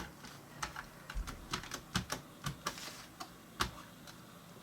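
Irregular light clicks and knocks of a Mac mini G4's internal parts being handled as its inner assembly is eased out of the casing.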